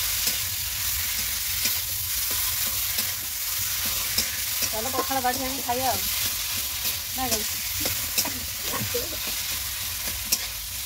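Onion and spice masala sizzling in oil in a metal kadai while it is stirred with a metal spatula, the spatula scraping and tapping against the pan many times over a steady frying hiss.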